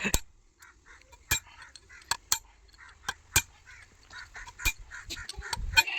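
Irregular sharp metallic clinks and knocks of tools and parts being handled while a rotavator gearbox is worked on.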